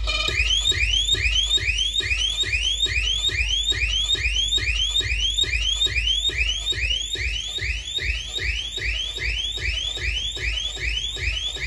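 Loud electronic siren effect played through a DJ sound system: a short rising whoop repeating about three times a second over a heavy deep bass throb.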